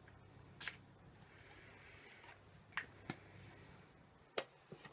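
One short hissing spritz of Soap & Glory Sugar Crush body spray about half a second in, followed by a few light clicks from handling the bottle.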